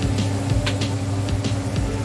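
Vegetables crackling with scattered irregular pops as they fry in a wok, over a steady low hum.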